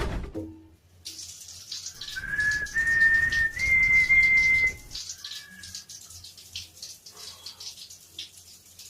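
A person whistling one pure tone that steps up in pitch three times, held for about three seconds from about two seconds in, over a faint crackling hiss.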